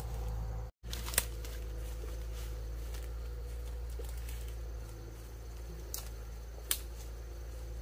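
A few sharp clicks, about three, over a steady low rumble of outdoor background noise.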